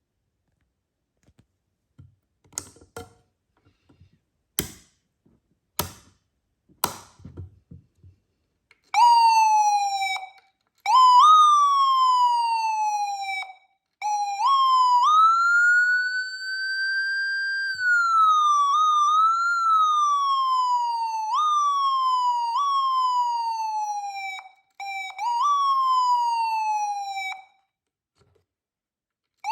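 Whelen Epsilon electronic siren running through its tones. Several sharp clicks in the first eight seconds, then from about nine seconds in short tones that jump up and slide down, a slow rise and fall in the middle, and repeated falling sweeps, with brief breaks between tones.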